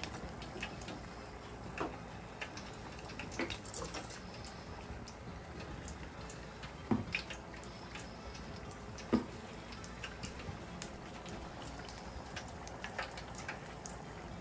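Battered red snapper fillets deep-frying in hot oil in an electric deep fryer: a steady bubbling sizzle with a few scattered pops.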